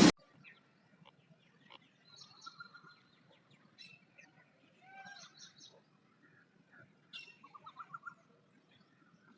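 Small birds chirping and calling faintly in short, scattered phrases, with a quick run of repeated notes about seven to eight seconds in.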